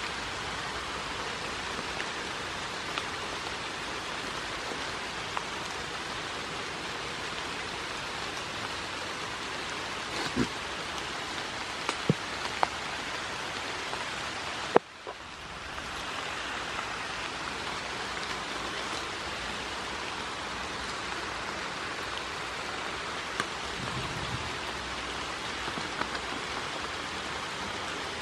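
Steady hiss of rain falling on grass and wet paths, with a few sharp clicks. The sound cuts out for a moment about fifteen seconds in, just after the loudest click, and comes back over about a second.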